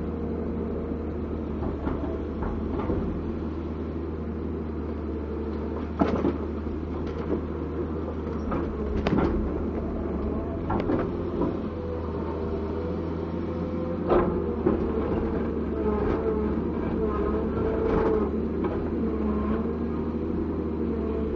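Komatsu PC200-7 excavator's six-cylinder diesel engine running steadily, with sharp knocks from the machine at irregular intervals, about six in all, the loudest about six seconds in and about fourteen seconds in.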